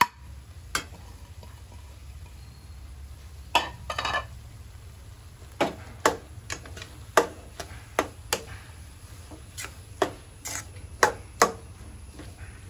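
Metal spoon stirring grated coconut into cooked green gram in a large metal pan, knocking and scraping against the pan in irregular clicks. Most of them come from about three and a half seconds in.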